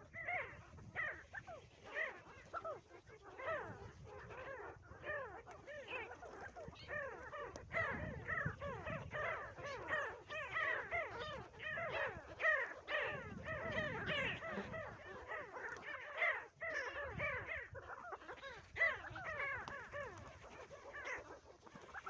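A flock of pin-tailed sandgrouse calling at a waterhole, many short calls overlapping without a break.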